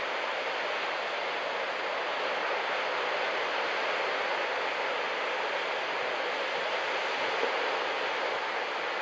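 Ocean surf: a steady, even rush of breaking waves and whitewater.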